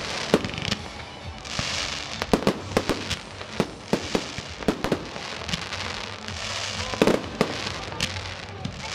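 Fireworks display: aerial shells bursting in a rapid, irregular series of sharp bangs, with bursts of crackling glitter between them.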